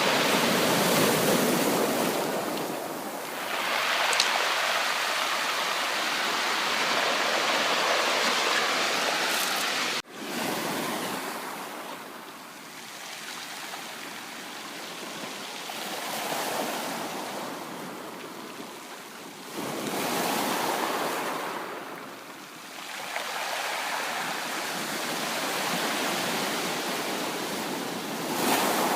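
Sea waves breaking and washing up on a shore, the rushing surf swelling and ebbing every few seconds, with a brief sudden break in the sound about ten seconds in.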